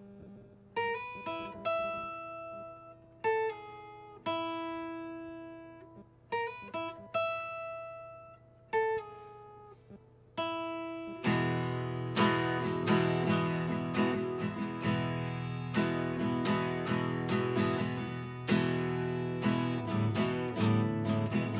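Acoustic guitar played solo: separate picked notes ringing out and fading for about the first ten seconds, then steady strummed chords from about eleven seconds in.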